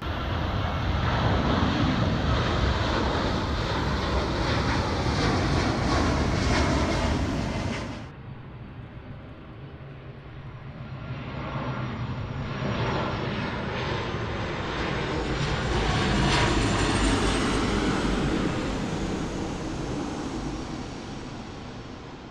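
Airliner engine noise, cut off abruptly about eight seconds in. A second jet's rumble and high turbine whine then swell up and fade away as it rolls along the runway.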